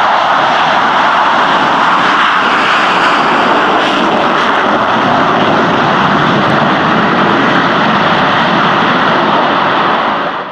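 F/A-18A Hornet jets taking off, their twin turbofan engines producing a loud, steady jet roar that cuts off abruptly at the very end.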